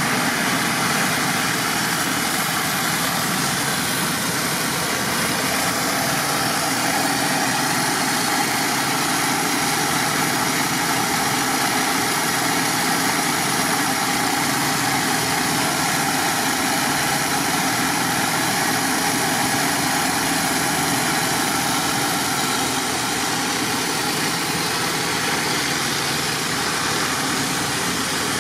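Engine-driven flood pump running steadily at a constant pace.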